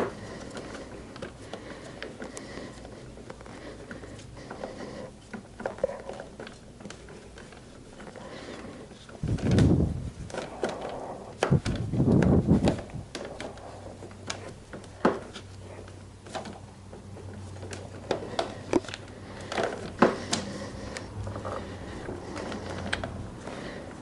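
Scattered light clicks and knocks of hand work on motorcycle parts, with two louder bursts of rubbing and handling noise about ten and twelve seconds in.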